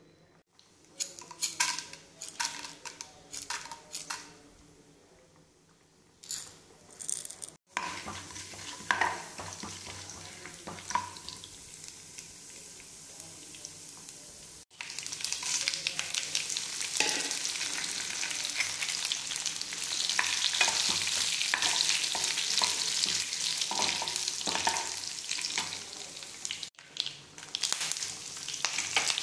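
Spices frying in hot oil in a pan for a tempering. First come scattered separate crackles and pops from the seeds, then a steady sizzle of chana dal stirred with a steel spoon. The sizzle gets denser and louder about halfway through, as dried red chillies and curry leaves fry, and the level jumps abruptly a few times.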